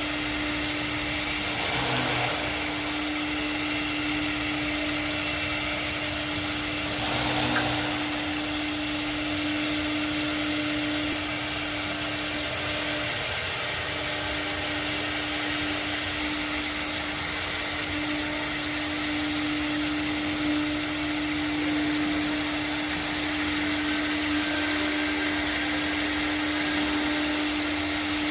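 CNC router running: a steady motor whir holding one constant pitch over an even hiss, with brief louder swells about two and seven seconds in.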